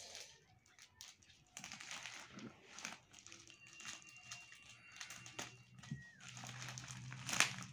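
Plastic courier mailer bag crinkling and rustling under the hands in irregular bursts, with sharper crackles near the end.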